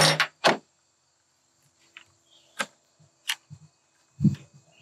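A few sharp clicks and knocks, four of them spread over the few seconds, as a chain-sharpening file guide holding a round file and a flat file is handled and set onto a chainsaw chain.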